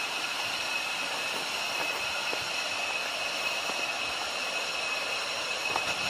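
Steady high-pitched drone of forest insects, an even unbroken buzz with a few faint ticks under it.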